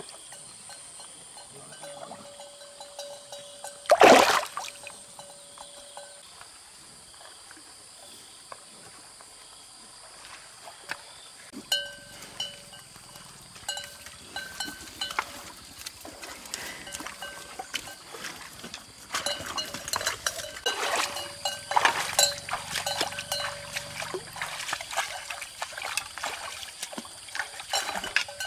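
Water splashing and sloshing as a person wades through a shallow muddy stream, in uneven bursts through the second half. A single loud sudden noise about four seconds in is the loudest sound.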